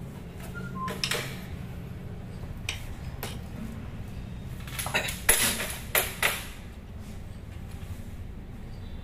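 A long snake-handling rod knocking and scraping against the edges and pipes of a water sump. The knocks are sharp and scattered, with a denser cluster of louder ones from about five to six and a half seconds in.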